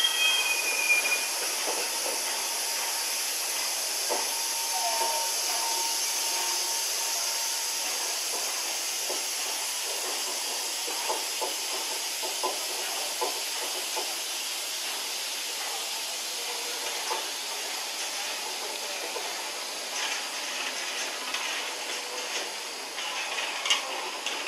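A train passing, heard as a steady rushing hiss, with a faint brief tone about four seconds in and irregular clicks from about ten seconds in.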